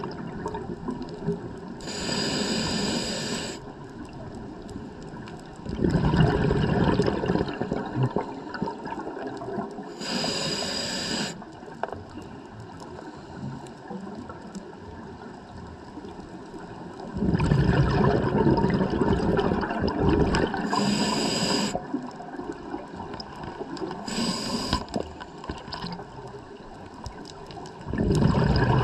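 Scuba diver breathing through a regulator, recorded underwater: short hissing inhales alternating with longer bubbling exhales, about four breaths in all.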